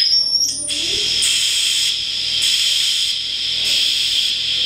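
Electronic steam train sound generator playing through a small loudspeaker: a pure electronic whistle tone ends under a second in, then a steady hiss starts, pulsing in slow, even chuffs like a steam locomotive.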